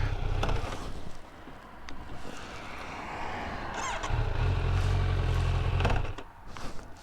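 Kawasaki Z900 inline-four engine running, then cutting out about a second in; it runs again for about two seconds and dies abruptly. The stalling comes from a ground wire rubbed through where it was pinched under the front sprocket cover.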